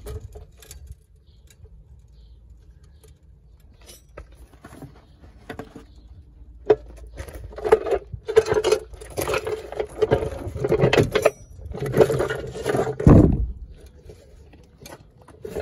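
Metal clattering and scraping as a car jack is fetched and moved into place, starting about a third of the way in, with a heavy thump near the end.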